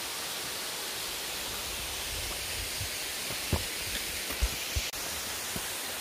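Steady rushing of a mountain waterfall, an even hiss with no change in level. A few soft low knocks come in the second half.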